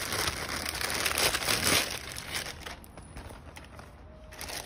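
Thin plastic bag crinkling and rustling as a pouch is pulled out of it. It is loud for about two seconds, then fades to faint, scattered rustles.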